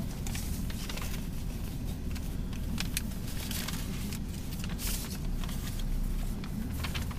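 Large paper sheets rustling and crackling as they are handled, in short sharp crackles over the steady low rumble of a car's cabin.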